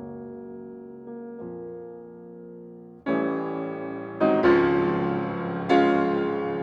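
Background instrumental music, keyboard-like. Soft held chords give way about three seconds in to a much louder passage of sharply struck notes.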